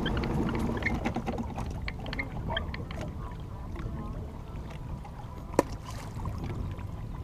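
Water and wind noise around a small fishing boat, with a low steady hum that fades out in the first second or so. Scattered small clicks and knocks come as a jug line is hauled in by hand over the side, and there is one sharp click about five and a half seconds in.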